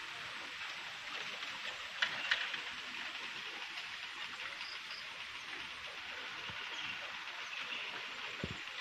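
Steady hiss of flowing river water, with two short clicks about two seconds in.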